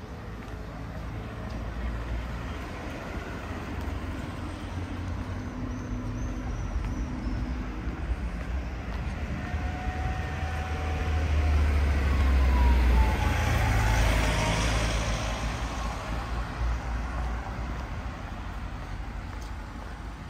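City street traffic: a steady rumble of engines and tyres, with one vehicle passing close about two-thirds of the way through, its pitch falling as it goes by.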